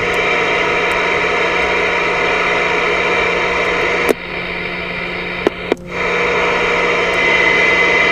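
Voyager VR9000 CB radio receiver hissing with band static as it is stepped through channels on the lower frequencies. A few sharp clicks come about four to six seconds in, with the hiss dipping for a moment, and a faint steady whistle comes in near the end.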